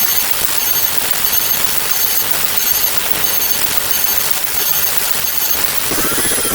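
A loud sound effect of dense, rapid crackling noise, with faint short high beeps about twice a second. Near the end it gives way to a different sound.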